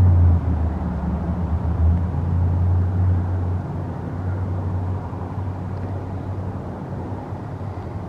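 Passing train's low, steady rumble and drone, loudest at first and then fading gradually as it moves away.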